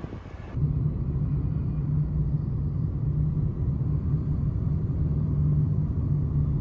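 Steady low rumble of a moving vehicle, starting abruptly about half a second in.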